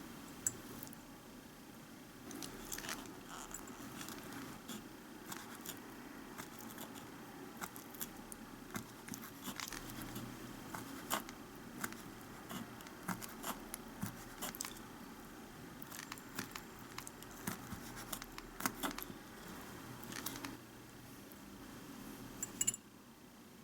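Irregular light clicks, taps and scrapes of miniature cooking utensils being handled, over a low steady hum that starts about two seconds in and stops near the end.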